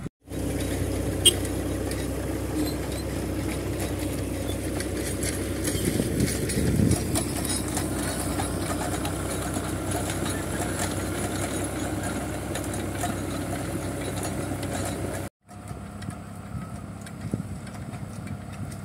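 Small crawler tractor's engine running steadily under load as it pulls a rotary tiller through the soil. The sound drops out briefly twice, once just after the start and once about three-quarters of the way through, and is quieter after the second gap.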